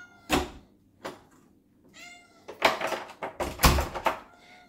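Black-and-white domestic cat meowing in several short calls, mixed with a few thumps and knocks.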